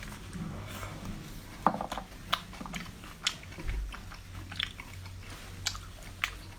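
Crunchy food being bitten and chewed: irregular sharp crunches, the loudest about one and a half seconds in.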